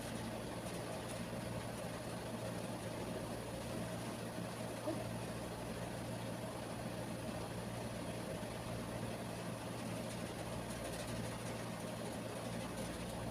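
A steady, unchanging low mechanical hum with a faint high whine over it, and a single small click about five seconds in.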